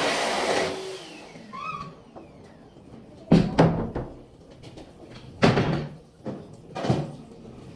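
A steady rushing noise cuts off within the first second, then four sharp knocks follow, two close together about three seconds in and single ones about two and three and a half seconds later.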